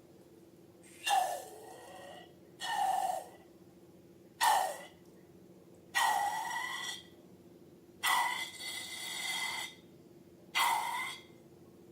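Slime-filled balloons being squeezed and handled: six short airy, squelching bursts, roughly one every one and a half to two seconds, the longest just after the middle. A steady low hum runs underneath.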